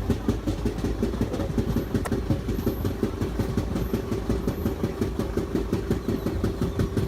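Train coaches running on rails, with a fast, even beat of knocks, several a second, from a flat spot on a wheel. The WDP4 diesel locomotive drones low and steady underneath.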